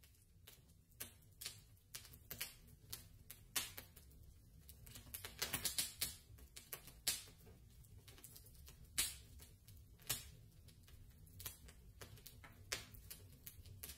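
Faint wood campfire crackling, with irregular sharp pops over a low steady rumble. There is a quick run of pops a little before the middle and a few louder single snaps after it.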